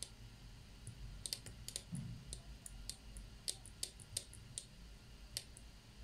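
Small tactile push buttons on a breadboard pressed and released by fingers: a faint, irregular string of sharp clicks.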